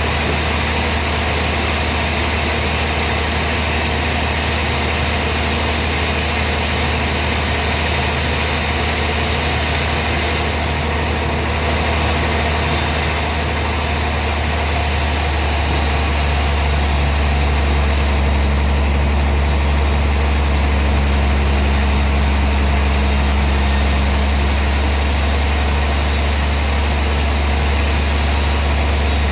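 Sawmill machinery running with a steady, loud low hum and a constant noisy whir, growing slightly stronger about halfway through.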